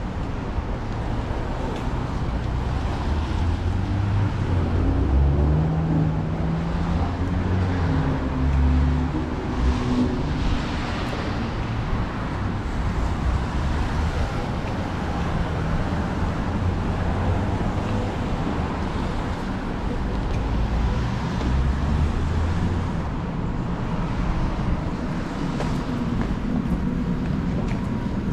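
City street traffic: a steady rumble of cars going by on the road. A heavier engine hum rises and falls between about five and eleven seconds in.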